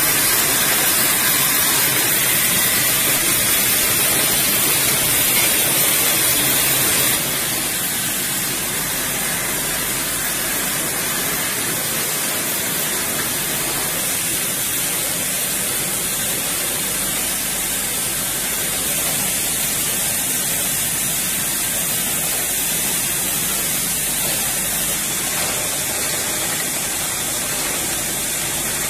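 Steady hiss of water spraying, mixed with the running machinery of a rotary PET bottle rinsing and filling machine; the level steps down slightly about seven seconds in.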